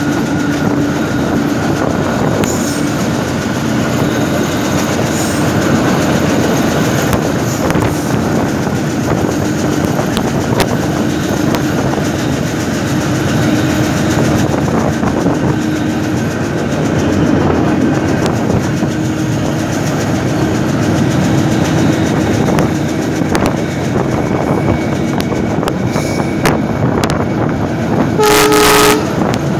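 Passenger train running at speed, heard from an open carriage doorway: a steady rumble and rattle of wheels on the track, with scattered clacks. Near the end the train's horn blows once for about a second.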